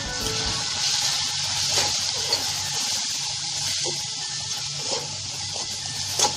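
Tomato, onion and spice masala sizzling in hot oil in a metal wok while a metal spatula stirs it, with a few sharp scrapes and taps of the spatula against the pan, the loudest near the end.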